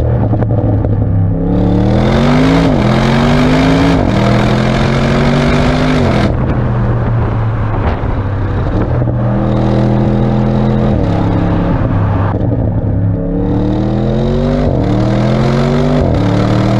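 Audi RS6 Avant's twin-turbo V8 accelerating hard through the gears: the engine note climbs in pitch and drops sharply at each upshift, three times near the start and twice more near the end, with a stretch of steady running between.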